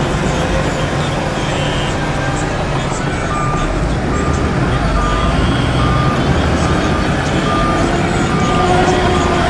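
Heavy earthmoving machinery with diesel engines running with a low rumble; about three seconds in, a reversing alarm starts beeping at one steady pitch, a little over one beep a second.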